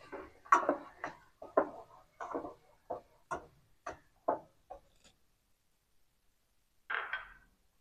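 A ladle scraping and knocking against a metal pan as chicken pieces are stirred in oil, about two short strokes a second for some five seconds. One longer scrape comes near the end.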